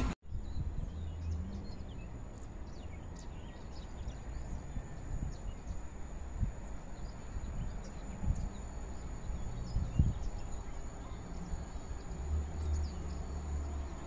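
Outdoor ambience: small birds chirping in short, scattered calls over a low, uneven rumble.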